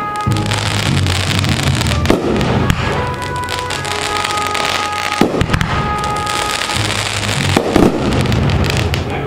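Consumer aerial fireworks going off, shots launching and bursting overhead, with loud bangs about two, five and seven and a half seconds in.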